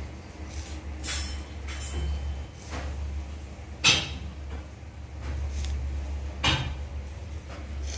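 Pencil drawing on a notebook page: several short scratchy strokes, with a sharper knock about four seconds in, over a steady low hum.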